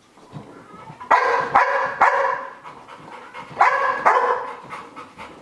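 A dog barking: three sharp barks about a second in, then two more a moment later. This is fear-of-missing-out barking from a dog kept out of another dog's training session.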